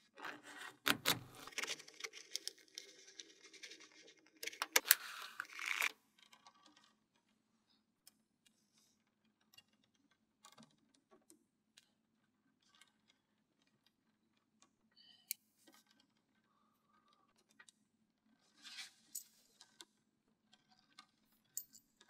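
Small magnetic balls rubbing, scraping and clicking against each other as a hand presses and slides them into place, for about the first six seconds. After that only scattered faint clicks are heard as single balls snap onto the build.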